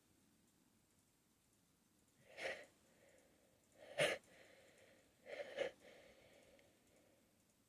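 Three short, breathy catches of breath about a second and a half apart, the middle one the sharpest and loudest. They are the gasps and stifled sneeze sounds of a person fighting a sneeze tickle and holding the sneeze back.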